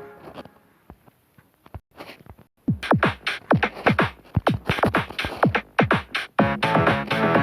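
Electronic music: a held chord fades out, then after a brief near-quiet gap with scattered clicks comes a rapid run of drum-machine hits, each falling in pitch, and about six seconds in a fuller beat comes in.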